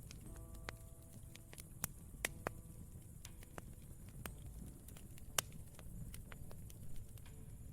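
Campfire crackling: irregular sharp pops and snaps of burning wood, the loudest about two and five seconds in, over a steady low rumble of the fire. A soft piano chord rings and fades in the first second or so.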